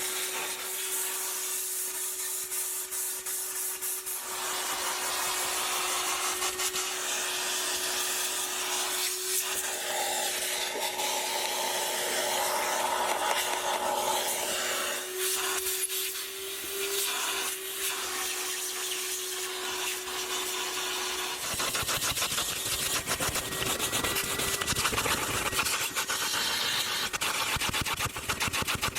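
Car-detailing handwork: continuous rubbing and scrubbing, with a steady whine from a small motor for about the first two-thirds. It then gives way to faster, fuller scratching.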